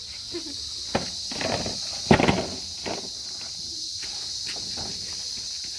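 Steady high-pitched chirring of insects, over rustling and a few knocks as a table is worked into a sack, the loudest a thump about two seconds in.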